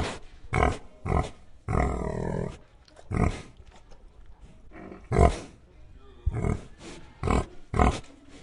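A domestic pig grunting: a string of short, separate grunts with gaps of varying length, and one longer drawn-out call about two seconds in.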